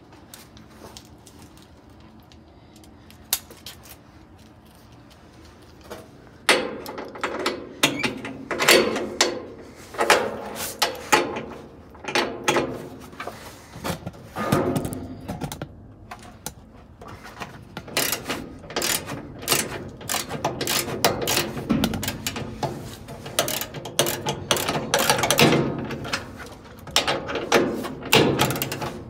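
Hand dismantling of a 1974 Whirlpool belt-drive washer's metal mechanism: irregular clanks, clicks and rattling scrapes of tools and metal parts, starting about six seconds in after a quiet start and going on in quick clusters.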